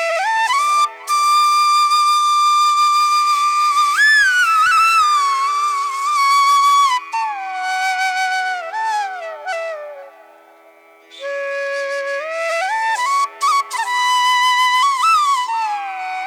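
Background music: a flute plays a slow melody of held and gliding notes over a steady low drone, pausing briefly about ten seconds in.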